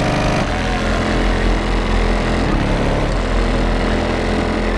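Chevrolet Trailblazer SS's V8 engine and exhaust, running at a steady idle, heard close to the rear of the truck.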